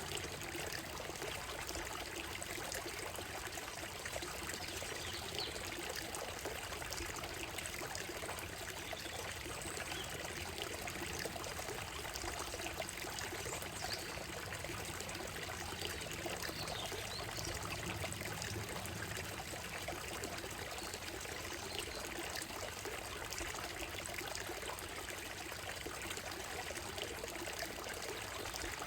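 Shallow stream running over a gravel and stone bed: a steady trickling, splashing flow. Faint, scattered bird calls chirp high above it now and then.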